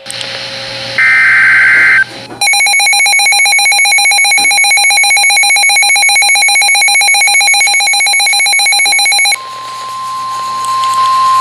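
A NOAA Weather Radio alert beginning: a one-second warble of SAME digital header tones, then a weather radio receiver's shrill, rapidly pulsing alarm beep for about seven seconds, then from about nine seconds in the long steady Weather Radio alarm tone that signals a warning is about to be read.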